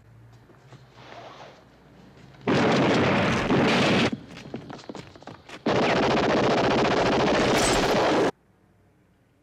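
An indoor explosion: two long, loud roars of blast and debris noise, the first about a second and a half, the second about two and a half seconds, with scattered cracks and rattles between them, each cutting off suddenly.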